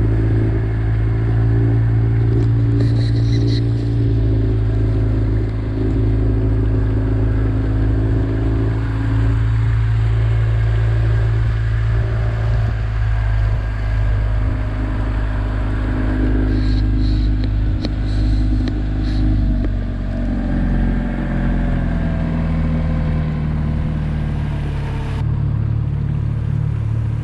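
STORM F18 four-stroke outboard motor running under way on an inflatable dinghy during its break-in period, a steady engine note that steps lower about two-thirds through.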